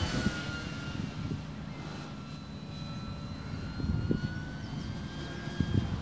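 Electric motor and propeller of a Dynam Hawker Hurricane IIc radio-controlled model in flight, a steady whine that falls slightly in pitch near the start as the plane passes overhead, then holds as it flies away. Low rumbling wind noise on the microphone underneath, with a few gusts.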